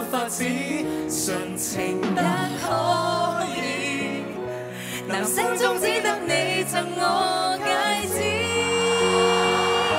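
A Cantonese pop ballad sung live, with a female singer and male singers trading and sharing lines with vibrato over band accompaniment.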